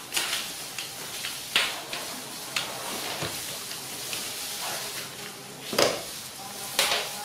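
Clicks and clatters of a plastic plate and crisp biscuits on a stainless-steel tabletop as a monkey paws through its food, about five knocks over a steady hiss. The loudest knock comes a little before the end.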